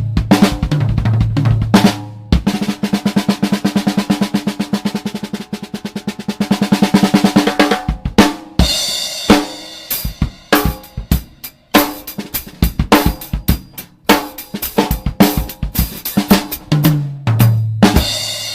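A drum kit played with a CB700 Internationale snare drum fitted with new snare wires and heads: a fast, even run of snare strokes, then a groove with bass drum and cymbals washing over it, and low ringing drum notes near the start and near the end.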